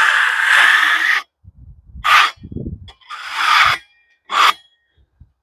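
Freshly sawn red oak boards scraping against one another as they are slid across the stack: one long scrape at the start, then three shorter ones, with a few low knocks of wood in between.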